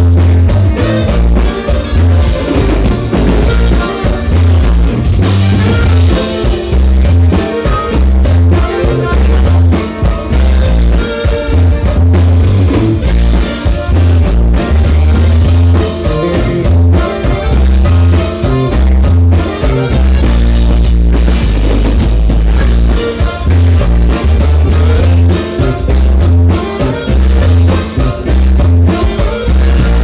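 Live dance-band music played loud, with a strong pulsing bass line and drums.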